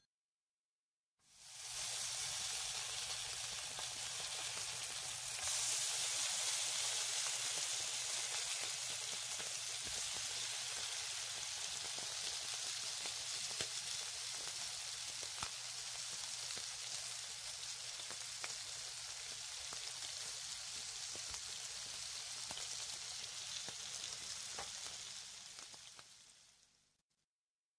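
A quiet, steady crackling hiss with scattered small pops, starting about a second in, growing a little brighter about five seconds in, and fading out near the end.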